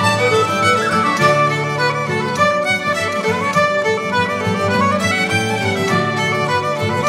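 Background music: a fiddle playing a melody with instrumental accompaniment.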